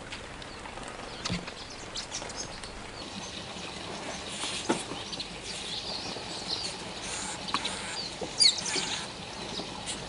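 A flock of weavers, including grey-capped social weavers, feeding at a bird table: scattered high chirps and short twitters, with a few sharp taps and wing flutters. The loudest chirps come near the end.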